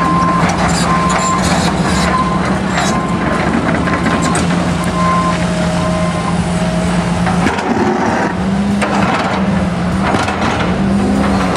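Excavator's diesel engine running as it breaks up asphalt, with scattered cracks and crunches of pavement. A reversing alarm beeps steadily, and a lower-pitched alarm takes over about five seconds in.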